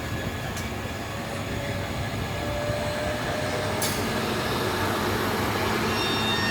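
Train running on the track: a steady running noise that grows slowly louder, with a single sharp click about four seconds in.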